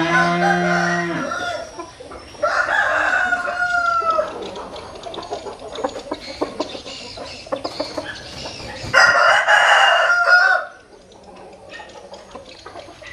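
Roosters crowing: a loud crow at the start, another about two and a half seconds in, and a harsh third crow about nine seconds in, with short clicks between.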